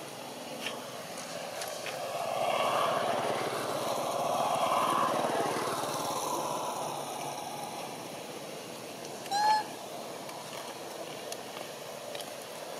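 A passing motor vehicle, its engine noise swelling for a few seconds and then fading away. About nine seconds in comes one short squeaky call, the loudest sound.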